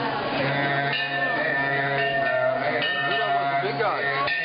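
Music with steady held notes and a wavering, gliding melody line over them, likely a voice.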